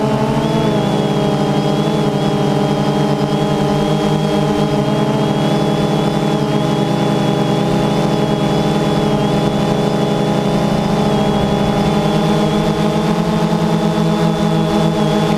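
DJI Phantom 2 quadcopter's electric motors and propellers running steadily in flight, a loud continuous buzzing drone with a high whine that wavers slightly in pitch as the motors adjust.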